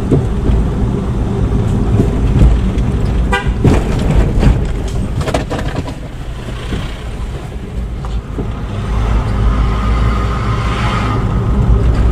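Car driving, with steady engine and road rumble, and a short horn toot about three seconds in.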